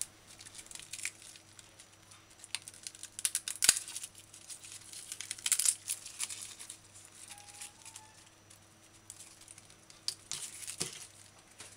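A garlic bulb being broken apart into cloves by hand, its dry papery skins rustling and crackling in scattered bursts, with one sharp knock about four seconds in.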